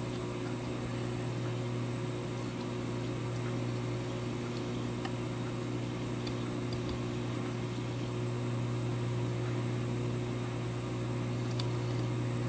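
Steady low hum, with a few faint light ticks partway through.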